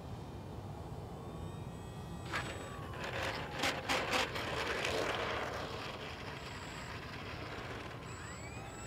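3D-printed RC aerobatic airplane touching down on an asphalt runway. A faint whine from its brushless electric motor gives way, two to four seconds in, to a cluster of sharp knocks and a scraping rush as the landing gear strikes the pavement and the plane rolls out. A steady low rumble, like wind on the microphone, runs underneath.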